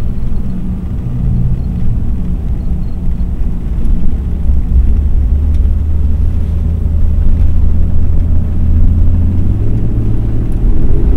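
Mercedes-Benz W126 sedan cruising on the highway, heard from inside the cabin: a steady low engine and road drone that rises a little near the end.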